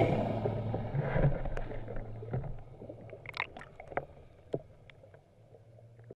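Underwater rushing and bubbling fading out, then scattered small bubble pops and clicks that thin out to quiet, over a faint steady low hum.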